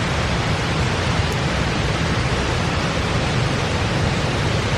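Steady, even rush of falling water with no change or pause.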